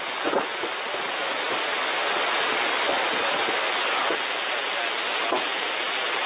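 Steady static hiss from a shortwave receiver tuned to the 40-metre amateur band in single-sideband mode, with no clear voice above the noise.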